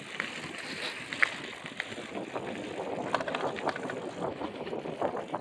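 Bicycles being ridden along a road: steady tyre and riding noise with scattered small ticks and rattles, and wind on the microphone.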